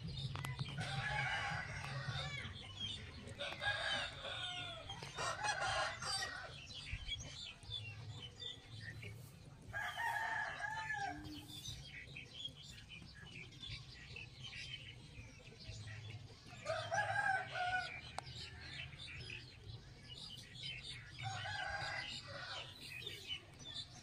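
Chickens calling, about six short separate calls spread through the stretch, over a steady low hum and faint rapid clicking.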